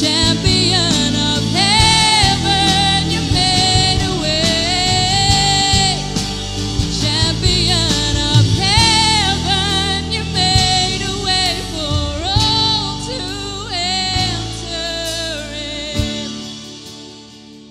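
Live worship band: a woman sings the lead melody over acoustic and electric guitars, bass, keyboard and drums. The drums stop about sixteen seconds in and the music fades out near the end.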